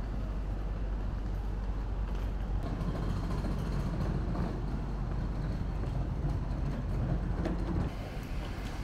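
Steady low rumble of city street noise and traffic, easing off a little near the end.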